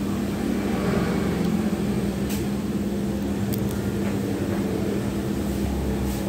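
A steady mechanical hum with a constant low tone, with a few short clicks of a spoon and fork against a plate during eating.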